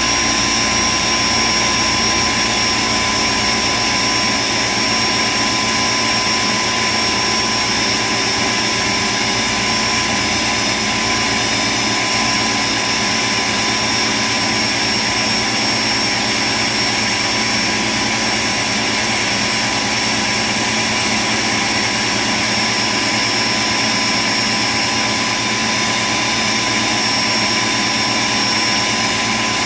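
Ninja Professional 1000-watt countertop blender running steadily, its blades grinding roasted peanuts into peanut butter, with a steady high whine over the motor noise.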